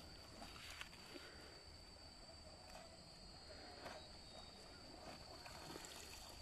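Near silence: faint outdoor ambience with a steady thin high tone and a few faint ticks.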